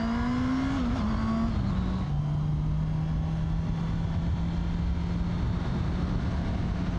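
Honda CB650R's inline-four engine pulling away through the gears: its pitch rises, drops at two upshifts in the first two seconds, then holds steady at cruising speed, with wind and road noise throughout.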